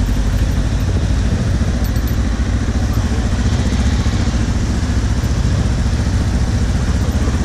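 Trail motorcycle engine running steadily at low speed, heard close up from a helmet-mounted camera, with a fast, even low pulsing.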